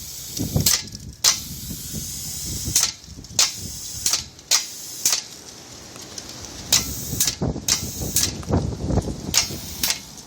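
Gas-powered air compressor's air system letting off short, sharp hisses at uneven intervals, roughly once a second, over a steady rough background noise.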